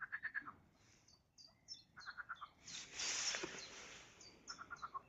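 Frogs croaking faintly in short rapid pulsed trains, three times over, with high chirping calls in between and a brief rush of noise about three seconds in.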